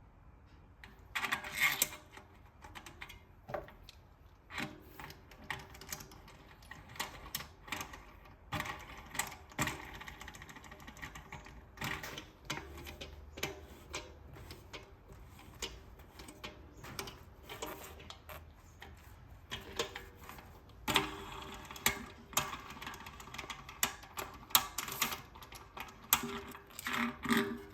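Irregular metallic clicks, taps and clinks of tools and bicycle hub parts being handled during a wheel bearing replacement, some with a brief ring, busier towards the end.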